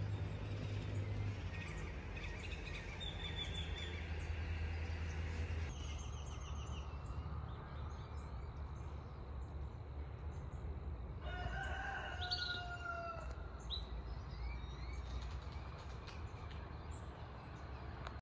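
Early-morning outdoor ambience: small birds chirping, and a rooster crowing once for about two seconds near the middle, over a low steady rumble.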